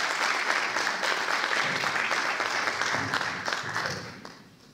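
Applause from an audience and panel, many hands clapping together, dying away about four seconds in.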